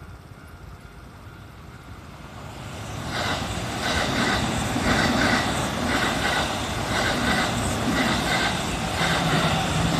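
Kintetsu Nara Line train approaching and passing over a level crossing. Its running noise builds over the first few seconds, then turns into a loud, steady rumble with a rhythmic clatter of wheels on the rails.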